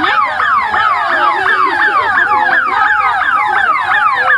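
Electronic sirens of a police escort convoy sounding in rapid falling sweeps, several a second, with more than one siren overlapping.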